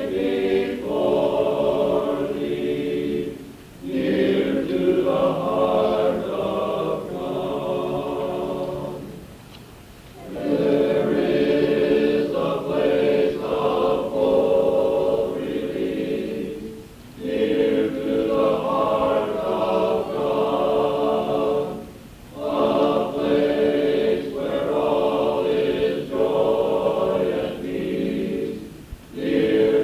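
A men's chorus singing a song in sustained phrases, with short breaks between phrases every several seconds, heard from a cassette tape recording.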